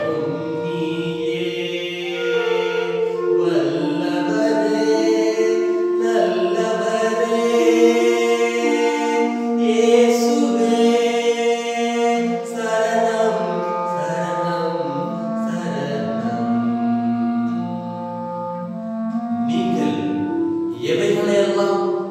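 Clarinet playing a slow melody in long held notes, with a voice singing along.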